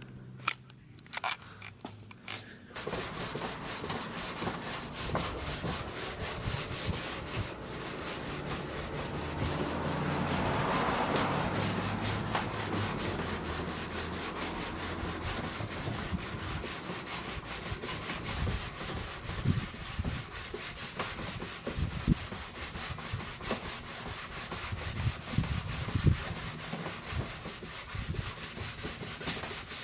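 Sanding on a Chrysler 300 bumper to take down its cracked, chipped finish: a continuous scratchy rubbing that starts about three seconds in, after a few light clicks, and runs on, a little louder around the middle.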